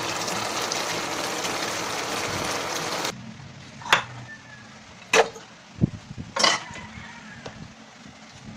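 Steady sizzling hiss from a pan of braised chicken feet in black bean sauce, cut off abruptly about three seconds in. After it come four or five separate knocks and clatters as raw chicken feet are dropped into a stainless steel bowl.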